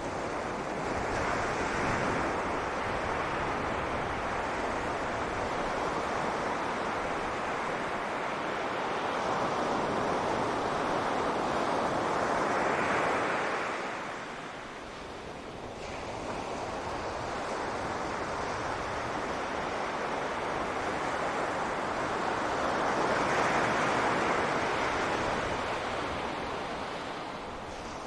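Sea waves breaking on a beach. The surf swells and eases in slow surges several seconds apart, with a quieter lull about halfway through.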